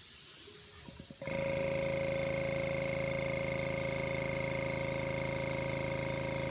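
Compressor-fed airbrush blowing air across wet acrylic paint with a steady hiss. About a second in it gets louder and a steady hum joins the hiss, then runs on evenly.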